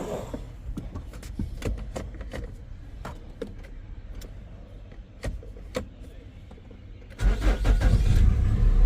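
A few light clicks and knocks, then about seven seconds in the Nissan Altima's engine turns over, starts and runs with a steady low rumble, on a high-amp bulb wired in place of its ignition-coil fuse.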